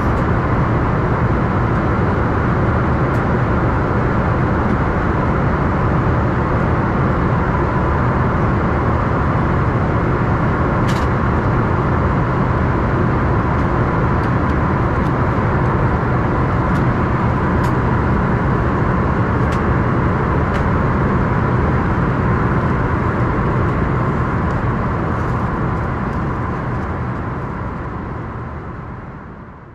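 Steady cabin roar of an Embraer ERJ-145 in flight, its two Rolls-Royce AE3007 turbofans and the airflow heard from a window seat, with a faint steady hum on top. It fades out over the last few seconds.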